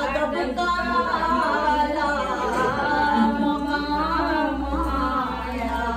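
Women singing a naat without any instruments, a melodic devotional recitation.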